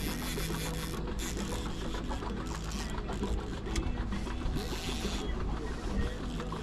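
A steady mechanical whirring over a low rumble, with scattered ticks.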